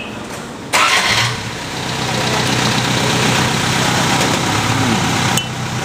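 An engine comes on suddenly under a second in and then runs steadily at idle, a little quieter near the end.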